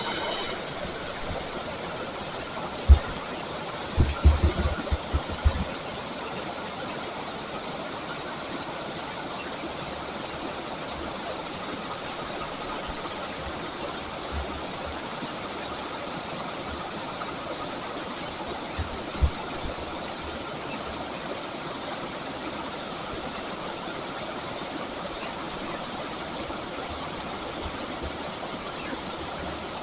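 Steady rushing of flowing river water, an even hiss with no rhythm, broken by a few dull low thumps about 3, 4 to 5 and 19 seconds in.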